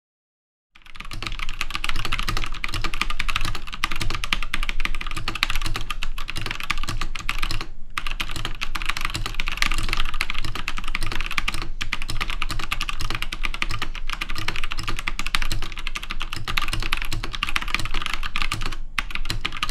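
Fast, continuous typing on a Velocifire VM02WS wireless mechanical keyboard with brown-clone tactile switches: a dense clatter of keystrokes that starts about a second in, with a few brief pauses.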